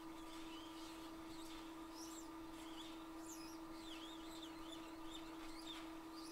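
Faint chirping and twittering of a small bird, short warbling notes coming irregularly over a steady electrical hum.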